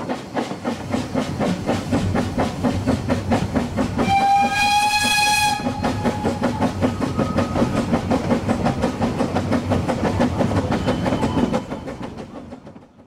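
Steam locomotive working, its exhaust beating in a rapid, even rhythm, with one whistle blast of under two seconds about four seconds in. The sound fades out near the end.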